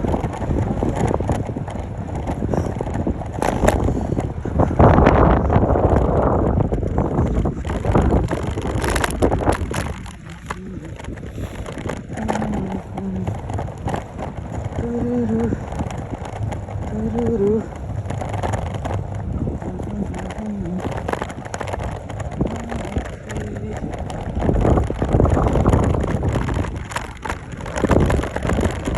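Wind buffeting the microphone outdoors: a rough, gusting rumble that swells and drops, strongest about five seconds in and again near the end.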